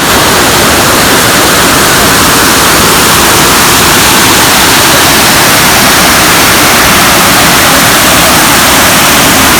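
Waterfall: loud, steady rush of falling water with no let-up.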